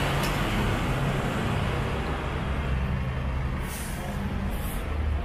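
Street traffic in a busy city centre: vehicle engines running steadily close by, with two short high hisses a little past the middle.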